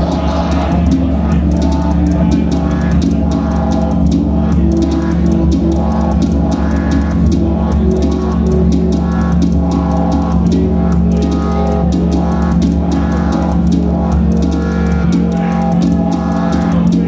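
Electronic music from a live-coded C++ MIDI sequence: a steady low drone under fast, even hi-hat ticks and drums, with a lead line of short repeating notes.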